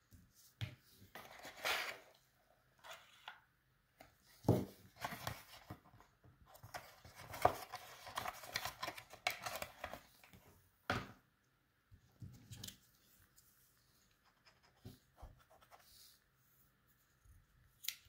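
Hands handling cardboard knife packaging and the knives' cardboard blade sleeves: intermittent scraping and rustling, with a few sharp knocks.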